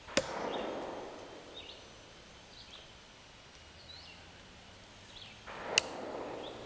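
A hatchet chopping into a log on a chopping block: two sharp chops, one right at the start and one about five and a half seconds later.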